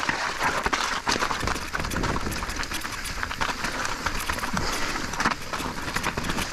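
Specialized Turbo Levo electric mountain bike riding over a rough, rocky trail: steady tyre rolling noise on loose rock with frequent irregular knocks and rattles from the bike, over a low rumble of wind on the microphone.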